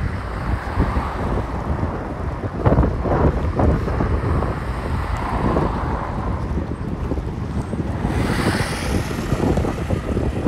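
Strong sea wind buffeting the microphone in a gusting low rumble, over choppy harbour water slapping against the stone quay. A brief rushing hiss comes about eight seconds in.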